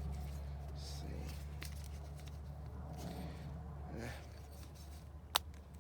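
Faint handling and rustling noises of a low-voltage landscape light fixture being worked on by hand, over a steady low hum, with one sharp click near the end.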